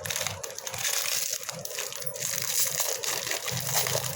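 Plastic biscuit packet crinkling and crackling as it is handled after being torn open.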